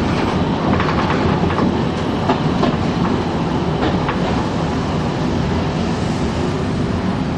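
Toyohashi Railway 3200-series tram running along street track: the steady low rumble of its nose-suspended (tsurikake) traction motors and gearing. Short clacks break through, mostly in the first few seconds and again about four seconds in, as the wheels cross rail joints and points.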